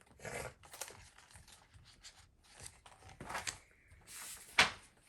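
Paper rustling and crinkling as a book's page is handled and turned, with one sharper swish near the end.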